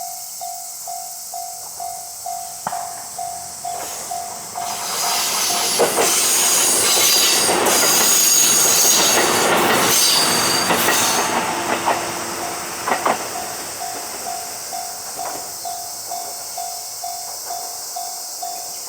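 Japanese railway crossing warning bell ringing, a repeated electronic ding at about two a second, while a train passes over the crossing from about five to twelve seconds in, its wheels clacking over the rail joints with a high squeal. The bell keeps ringing once the train has gone.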